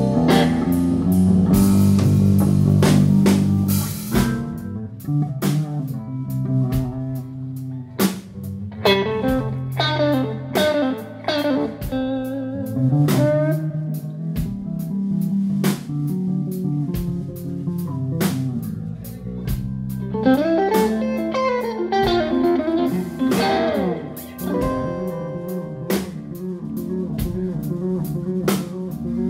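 Live blues band playing: an electric guitar plays lead lines with bent notes over electric bass and a drum beat.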